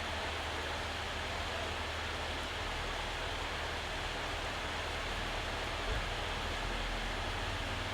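Rain shower falling steadily, an even hiss, with a steady low rumble underneath and a brief low thump about six seconds in.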